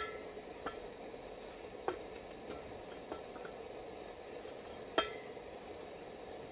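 Wooden spatula stirring and pressing thick ugali in a stainless steel saucepan, knocking against the pan's side about six times so the pan rings briefly; the loudest knocks come at the start and about five seconds in. A steady hiss runs underneath.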